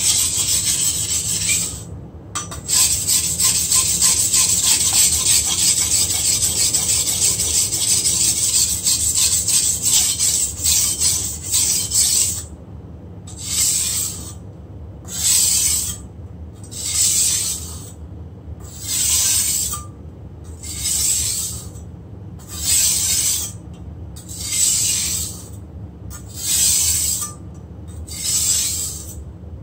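Chinese cleaver blade being ground back and forth on a wet whetstone. Fast continuous strokes for the first dozen seconds, with a brief break about two seconds in. After that come slower separate strokes, about one every second and a half.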